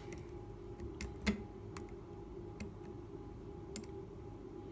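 Lock pick clicking against the pin stacks inside a cheap alarm padlock's keyway while the pins are probed under tension for binders: a handful of faint, irregularly spaced clicks, the sharpest about a second in.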